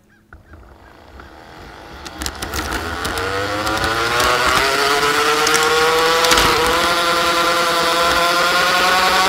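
Garden-scale model locomotive's electric motor and gear drive whining as it accelerates: the pitch rises steadily for a few seconds, then holds level at speed. A few sharp clicks sound over the whine.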